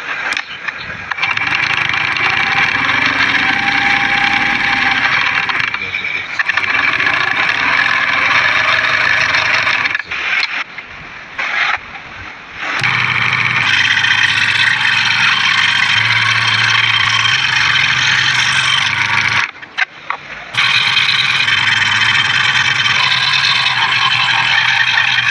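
Homemade PVC-pipe scroll saw running with a steady whine, dropping away briefly twice.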